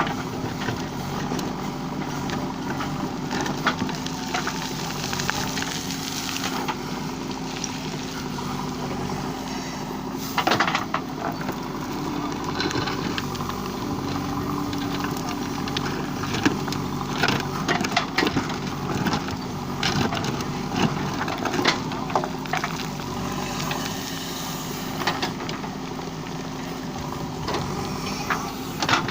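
JCB 3DX backhoe loader's diesel engine running steadily, with scattered knocks and clatters over it.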